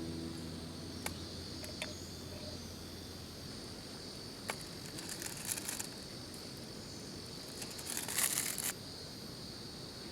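Insects trilling steadily in the background, broken by a few sharp clicks and two short bursts of crinkling, rustling noise, the louder one about eight seconds in.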